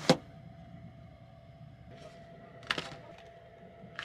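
A sharp click right at the start, then a softer double click nearly three seconds in, over a faint steady hum.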